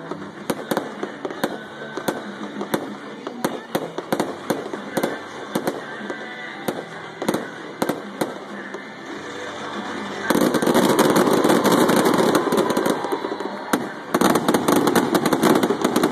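Aerial fireworks going off in a string of sharp bangs. From about ten seconds in they turn into a loud, dense barrage of bangs, which breaks off briefly and starts again near the end.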